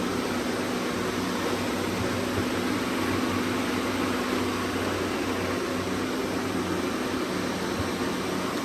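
Robot vacuum cleaners running together: a steady whirring hum of their suction fans.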